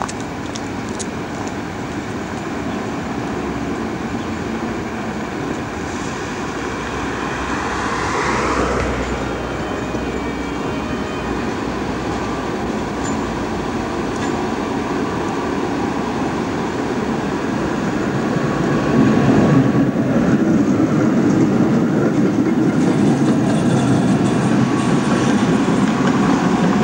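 Pair of Romanian-built electric shunting locomotives, the second hauled dead, rolling along street tram tracks. The running noise grows louder as they draw near and pass close by, with a brief louder swell about eight seconds in.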